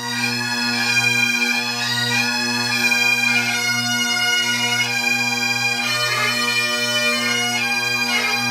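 Great Highland bagpipes playing a tune: the chanter's melody changes note over the steady, unbroken hum of the drones.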